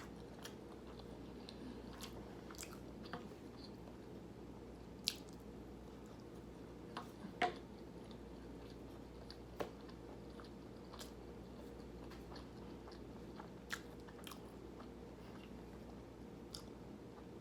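A person chewing a mouthful of Hawaiian plate lunch: scattered soft mouth clicks and smacks, a few louder ones around the middle, over a steady low background hum.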